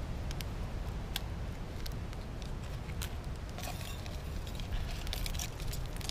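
Strong wind rumbling on the microphone, with scattered sharp crackles and clicks that grow denser in the second half, from a small wood campfire and a sachet of coffee being emptied into a metal mug.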